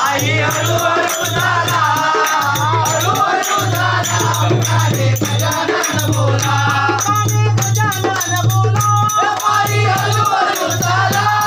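A group of people singing a devotional aarti to Ganesh in unison, clapping along with a steady rattling percussion beat.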